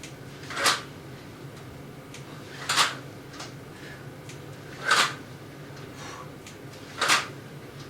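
Four short, sharp exhales, one about every two seconds, in time with the repetitions of dumbbell thrusters.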